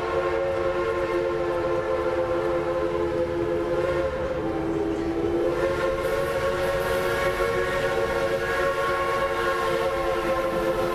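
A train whistle sounding one long, held chord of several tones. It briefly wavers lower about four seconds in, then steadies again, over a low rumble.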